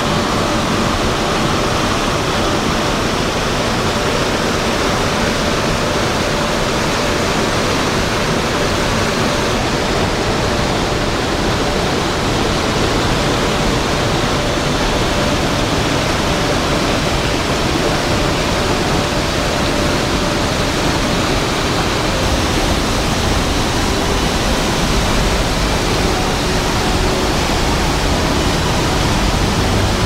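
Mountain stream water rushing over small waterfalls and cascades among granite boulders, a loud steady roar of white water.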